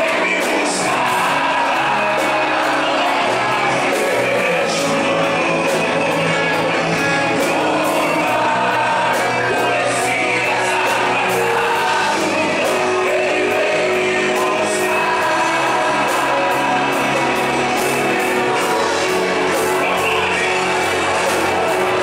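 Live Portuguese-language gospel worship song: a male singer on a microphone leads over a band accompaniment, with shouts from the congregation.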